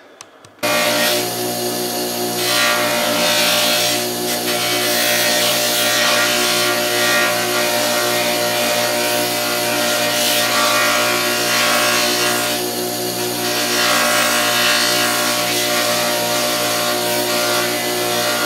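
An electric power tool runs steadily with a constant hum, and a rough rubbing noise swells and fades as work is held against it. It starts and stops abruptly.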